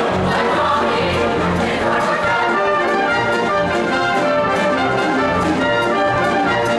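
Show choir singing in harmony over brass accompaniment and a steady beat.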